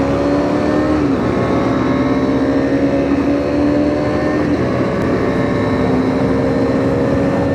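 Motorcycle on the move: steady engine hum whose pitch drifts slowly up and down, with rushing wind and road noise.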